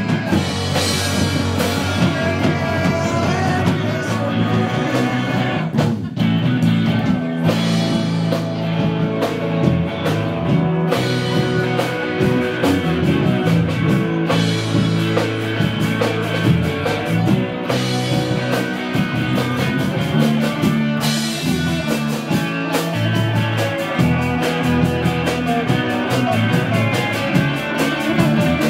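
Live rock band playing electric guitars over a drum kit, a dense, continuous rock groove.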